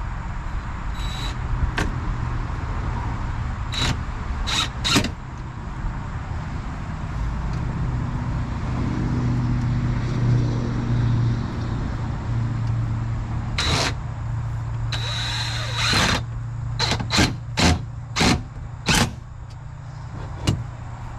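A steady low motor hum, with sharp knocks and clicks scattered through it, several in quick succession near the end.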